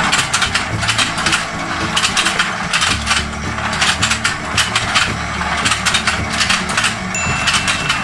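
Battery-powered toy fishing game running, its turning pond board clattering with rapid plastic clicks from its gears and flapping fish mouths. Music plays underneath.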